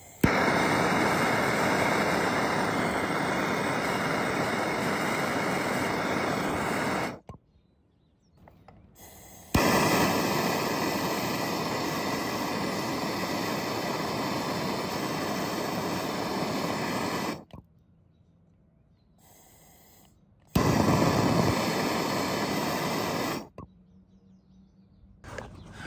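Handheld MAP-gas torch flame hissing steadily as it heats a fluxed copper joint on a liquid-line filter drier for soldering. It comes in three bursts, about seven, eight and three seconds long, each starting and cutting off suddenly as the torch is fired and released.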